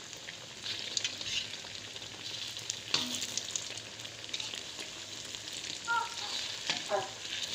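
Egg-coated potato fritters (perkedel kentang) sizzling and crackling as they deep-fry in hot oil in a wok. A metal spatula clinks against the pan as they are turned, with one sharper knock about three seconds in.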